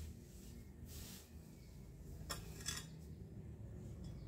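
Two short scraping clinks a few tenths of a second apart, about two seconds in: the head of a long-handled garden tool striking and scraping the ground.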